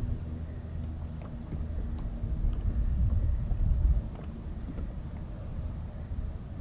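Steady high-pitched insect chorus with a low rumble that eases about four seconds in, and a few faint ticks.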